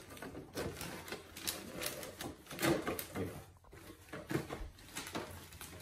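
A cardboard box being pried open by hand, its flaps pulled and torn, with the crinkle of gift wrap: a string of short, irregular crackles and snaps.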